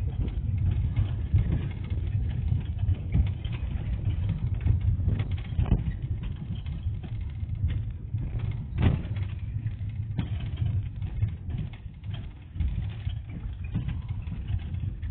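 Minibus riding along a city street, heard from inside the cabin: a steady low engine and road rumble, with a few short knocks and rattles, one around six seconds in and a sharper one around nine seconds.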